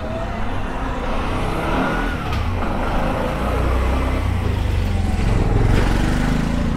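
A motor vehicle's engine running close by, growing louder over several seconds.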